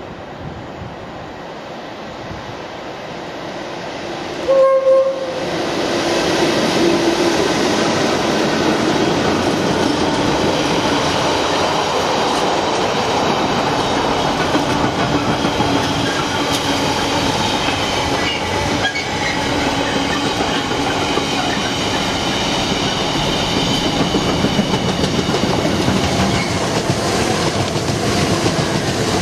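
Two Class 86 electric locomotives hauling a long container freight train past, with a short loud horn blast about five seconds in. After the horn comes the steady rumble and clickety-clack of the container wagons, with a passenger electric multiple unit also passing on the nearer track near the end.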